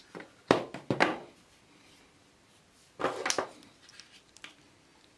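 Hand tools, pliers and wire cutters, being handled on a hard worktable: sharp knocks and clatters about half a second and a second in, and another cluster of clicks about three seconds in.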